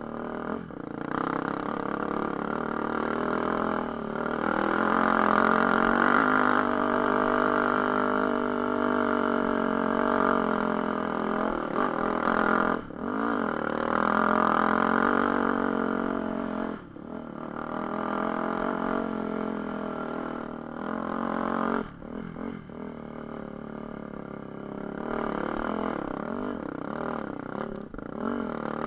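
Enduro dirt bike engine running under load, its pitch rising and falling with the throttle. The throttle briefly shuts off several times.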